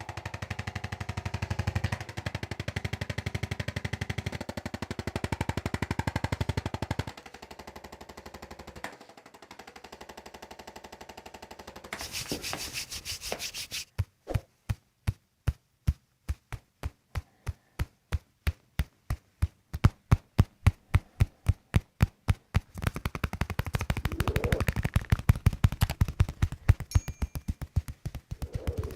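Rapid, evenly spaced mechanical tapping. It is very fast for the first several seconds and quieter for a few seconds after that. From about halfway it slows to about three sharp taps a second, then speeds up again near the end.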